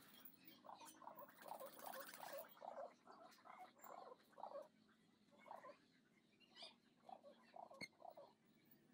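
Domestic pigeons cooing faintly: a quick run of short low calls over the first few seconds, then scattered single ones.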